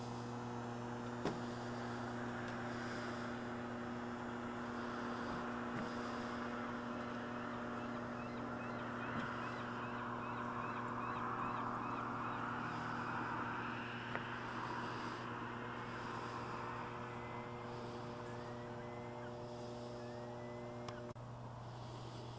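Steady electrical hum, a low tone with a stack of overtones, that cuts off suddenly about a second before the end. Faint small-bird chirps come over it, a quick series early on and a few rising notes later.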